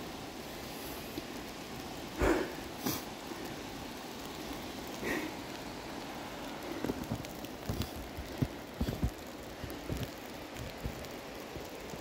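Steady hiss of water from a snow-banked mountain creek and falling wet snow, with soft, irregular low thumps, several close together about two-thirds of the way through.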